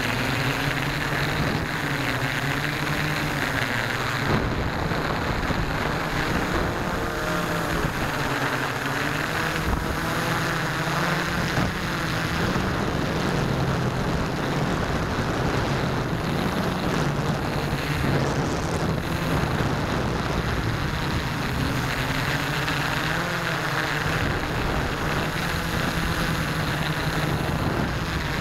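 Model airplane's motor and propeller running steadily in flight, heard through an onboard keychain camera's microphone with heavy wind rush. The low drone wavers a little in pitch as it flies.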